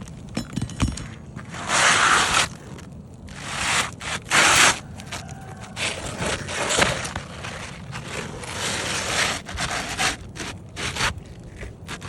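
Scraping and rustling against roof shingles in irregular bursts of about a second each, with a few sharp clicks, as a damaged shingle is worked loose and handled.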